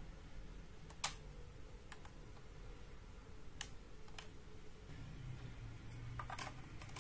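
A few light plastic clicks and taps from handling a Desire Driver toy belt and a 3D-printed Rider Core ID as the core is taken off the driver. The loudest click comes about a second in, and there is a small run of clicks near the end.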